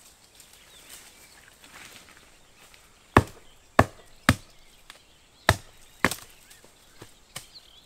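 Fiskars X7 hatchet chopping branches off a fallen birch trunk. Five sharp chops come about half a second to a second apart, starting about three seconds in, followed by a few lighter knocks near the end.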